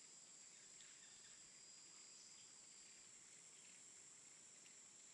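Near silence: faint steady high-pitched hiss.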